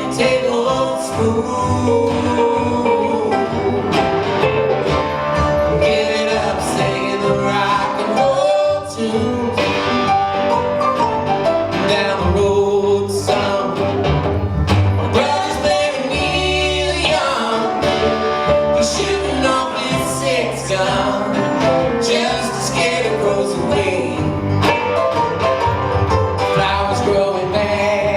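Live country-bluegrass music: acoustic guitar and other string instruments playing a song with a steady beat, with singing over it.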